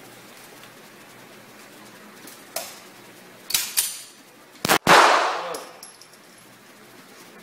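About five handgun shots, spaced irregularly, at an indoor range. The loudest comes near five seconds in and rings on for about a second off the range walls.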